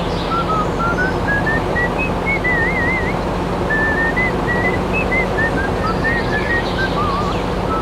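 A whistled tune of short gliding notes and a few quick trills, over a steady low hum and machine-like noise.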